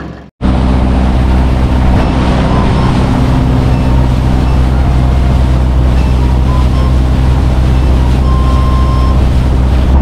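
A fishing boat's engine running steadily under way: a low, even drone under a broad rushing hiss. It starts abruptly just after a brief gap.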